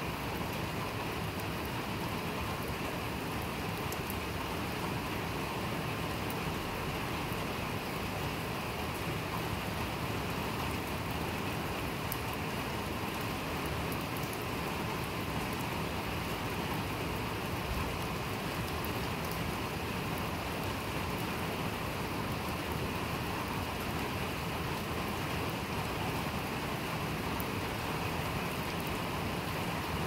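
Steady rain falling on paving stones and a lawn: an even, unbroken hiss with faint scattered drop ticks.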